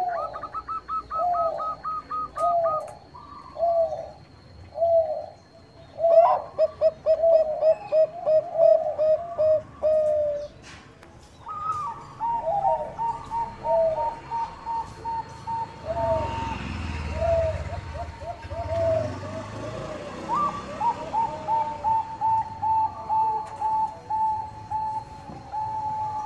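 Zebra doves (Bangkok-type perkutut) cooing: repeated short rolling coos broken by quick runs of higher notes, with two lines of notes at once in places. A low rumble sounds partway through.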